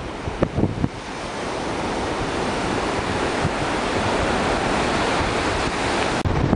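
Surf washing up on a sandy beach, with wind buffeting the microphone. A steady rush that builds over the first couple of seconds and then holds, breaking off for an instant near the end.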